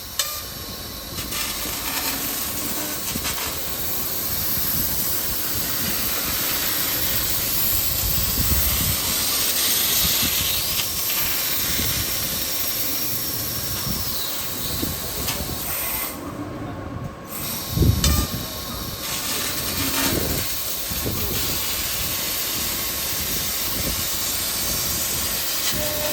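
Tube laser cutter cutting 6 mm carbon steel tube: a steady hiss of the cutting jet and sparks, with a machine whine that rises, holds and falls about halfway through. The hiss briefly cuts out later on, followed by a thump.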